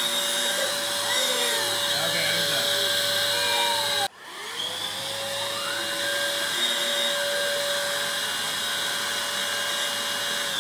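Household vacuum cleaner motor running with a steady high whine. About four seconds in it cuts out and at once spins back up with a rising whine, then runs steadily again until it begins to wind down at the very end.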